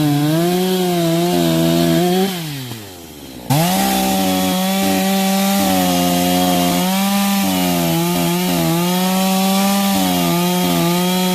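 Chainsaw running at full throttle and cutting firewood, its engine note wavering slightly under load. About two seconds in, the throttle is let off and the engine winds down; a second later it snaps back to full revs and cutting resumes.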